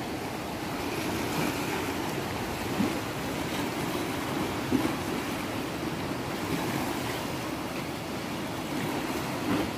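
Sea surf washing on the shore, a steady rush of noise.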